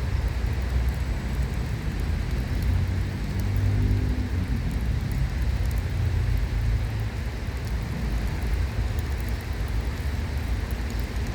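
Steady outdoor rushing noise with a deep rumble, and a low hum that comes and goes about four seconds in.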